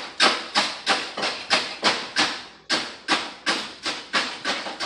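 Knife chopping an onion on a cutting board: a steady run of sharp chops, about three a second.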